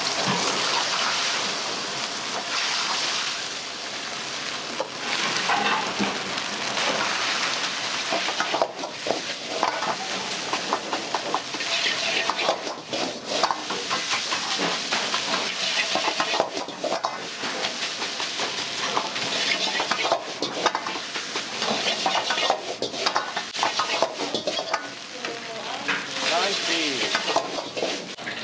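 Food sizzling in a hot wok, with a continuous frying hiss and many quick metallic clicks and scrapes as a ladle stirs and tosses it.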